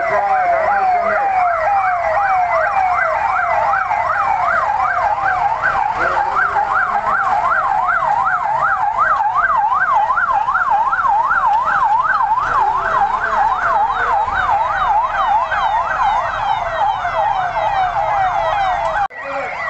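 Police patrol vehicle sirens yelping, the pitch sweeping up and down rapidly, about three times a second. In the first few seconds a second, slower siren with falling sweeps overlaps it. The sound drops out briefly near the end.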